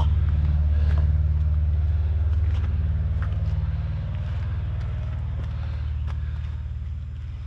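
Delivery truck's engine running with a steady low rumble that slowly grows quieter over the last few seconds.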